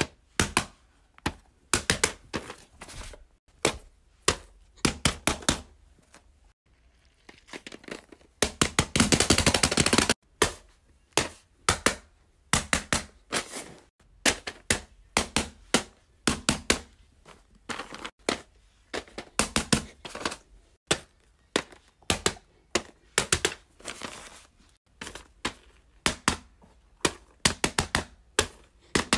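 Quick irregular taps and clacks of silicone and plastic fidget toys being set down, tapped and slid on a paper mat, several a second, with a dense run of rapid clattering about nine seconds in.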